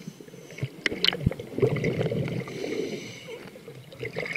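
Water sloshing and gurgling around a camera moved just under and up through the surface, with a few knocks early on.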